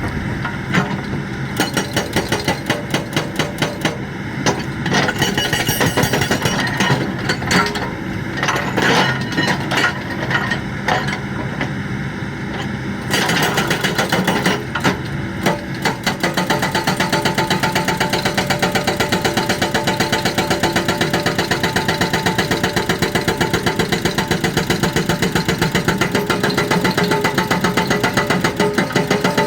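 Hydraulic breaker on a Kobelco excavator hammering with rapid repeated blows, over the excavator's running engine. The blows are uneven at first, then settle about halfway through into a steady, fast, even rhythm.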